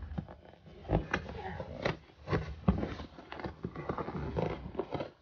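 A cardboard shipping box being handled and opened, making irregular knocks, scrapes and rustles.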